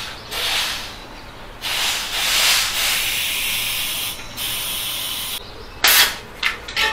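Compressed air hissing through a trigger inflator gun with a dial pressure gauge into a bicycle tyre's inner tube, in several bursts: a short one at the start, a long one of about two and a half seconds in the middle, then shorter ones and a brief sharp hiss near the end.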